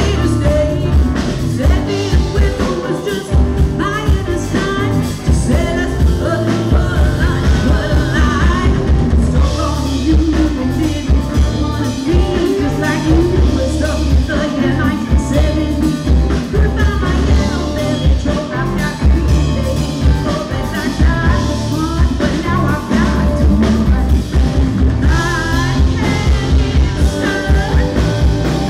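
Live rock band playing: women singing over drum kit and electric bass, with a steady beat.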